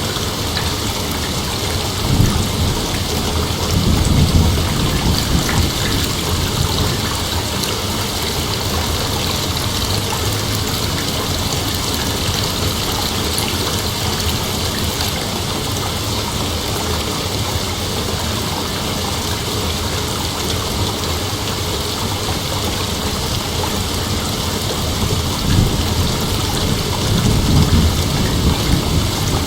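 Steady rain with heavy thunder rumbling low twice, once a couple of seconds in and again near the end.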